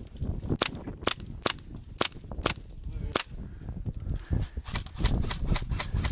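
Airsoft guns firing single shots as sharp cracks: about six shots roughly half a second apart in the first three seconds, then a quicker string of about seven near the end.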